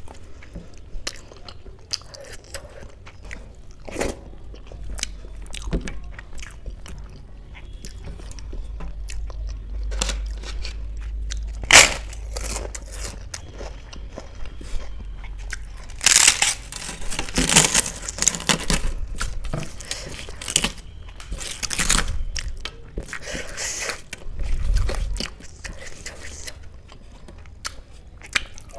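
Close-up eating sounds: a mouthful of kadhi-soaked rice being chewed wetly. A little past halfway come loud, crackling crunches as bites are taken from a crisp spiced flatbread, with more scattered crunches and chewing later.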